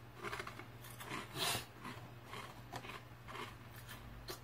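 Several short scratching, rubbing sounds close to the microphone, the loudest about a second and a half in: a hand rubbing at the head near the earphone mic.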